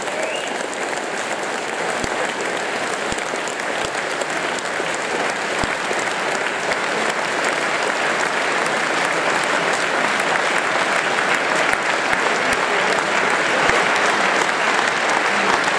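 A large audience applauding steadily, the clapping swelling a little louder toward the end.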